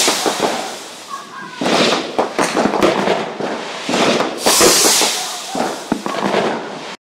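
Fireworks going off: dense crackling with many sharp pops, swelling and easing in waves, cutting off suddenly near the end.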